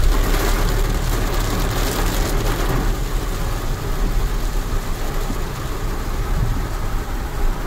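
Heavy rain falling on a car's windshield and body, heard from inside the cabin over the low rumble of the car's engine. The rain hiss is strongest for the first three seconds or so, then eases a little.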